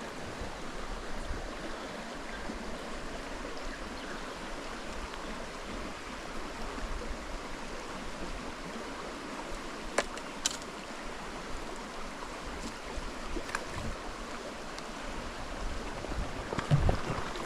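Shallow river running steadily over stones. Two sharp clicks come about ten seconds in, and a short low thump comes near the end.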